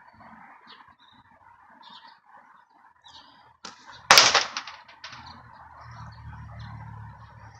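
A slingshot shot striking a target on a post: one loud, sharp impact about four seconds in that rings and rattles briefly, with a faint click just before it and a smaller knock about a second later. Faint bird chirps sound in the background.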